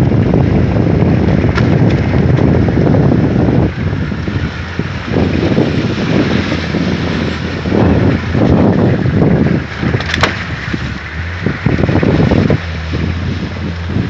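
Wind buffeting the microphone in strong gusts over a Hummer H1's V8 engine running as the truck crawls through a snow-banked creek. The engine's steady low hum comes through more clearly when the gusts drop off near the end.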